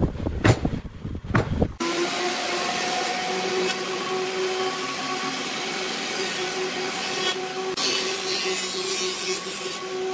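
Wood lathe running with a turning tool cutting the spinning wood: a steady hissing scrape over a constant motor hum. It starts abruptly about two seconds in, after a few heavy low knocks.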